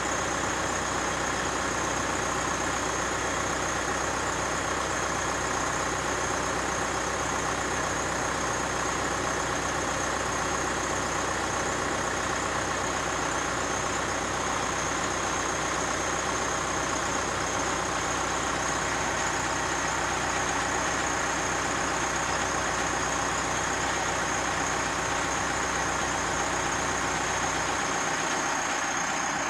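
Case 580 Super L backhoe's diesel engine idling steadily close by; its low rumble drops away shortly before the end.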